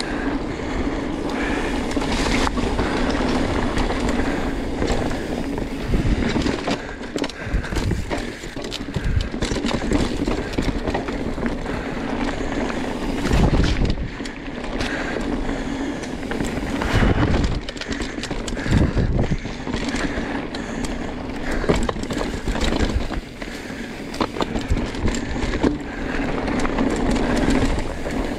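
Mountain bike rolling fast down a dirt forest trail: steady tyre rolling noise with frequent knocks and rattles as the bike goes over bumps.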